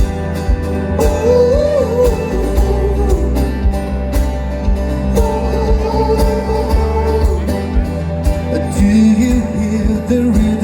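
Live folk-rock band playing an instrumental passage of a song: a steady drum beat and bass under guitar, with a lead melody line on top.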